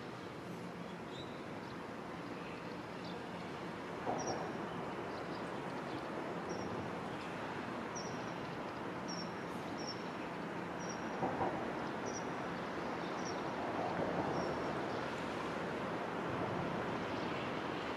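Rumble of a JR Freight EF210 electric locomotive and its container train approaching, slowly growing louder. Short high bird chirps come now and then.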